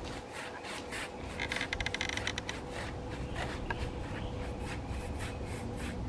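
Paintbrush bristles scrubbing caked dirt off the metal fins of an air-conditioner condenser coil in quick repeated strokes, busiest about a second and a half to two and a half seconds in.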